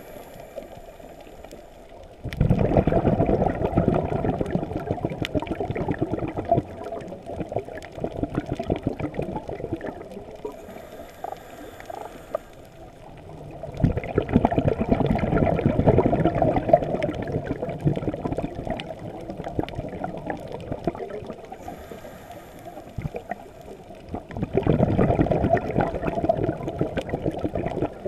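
Underwater breathing sounds of a diver, heard through the camera's housing: a short, thin high hiss of an in-breath through the regulator, then a longer rushing burst of exhaled bubbles, three times about eleven seconds apart. Fainter crackling goes on between the breaths.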